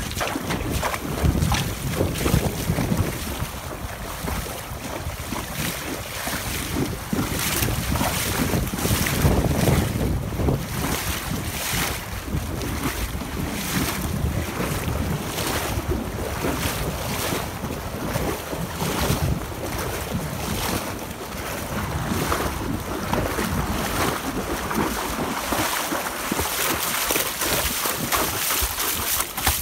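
Horse hooves fitted with hoof boots splashing steadily through shallow creek water, with wind buffeting the microphone.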